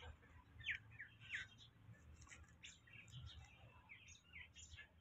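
Faint chirping of small birds, many short quick calls, over a low steady hum.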